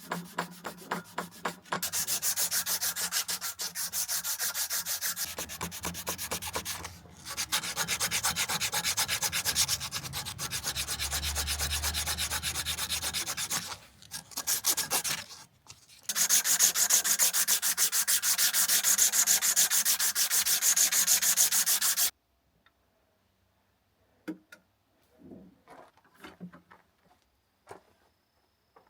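Steel knife blade being sanded: a steady abrasive scraping in long runs, pausing briefly twice and stopping abruptly near the end, followed by a few light knocks.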